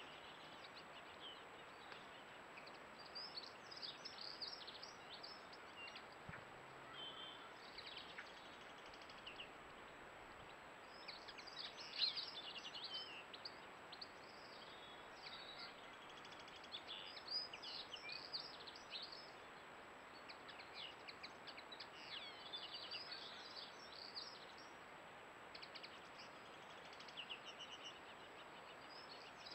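Faint songbirds singing and chirping, several overlapping short trills and calls, over a steady hiss, with one louder burst of song about twelve seconds in.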